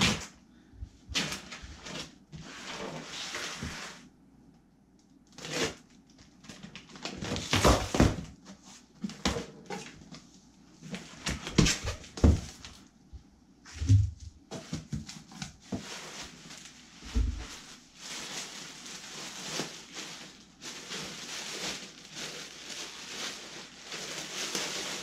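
A cardboard box being opened by hand: irregular scrapes, knocks and tearing of cardboard and packing tape, with a few dull thumps. From about two-thirds of the way through, a steady crinkling of plastic bags as wrapped clothing is lifted out.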